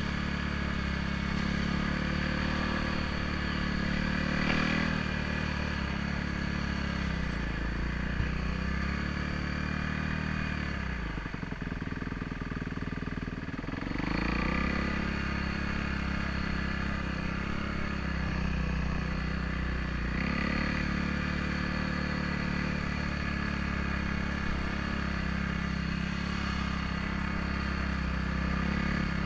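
Trail bike engine running while riding. About ten seconds in, the engine note drops away to a low, uneven putter for a few seconds, then picks back up to a steady run.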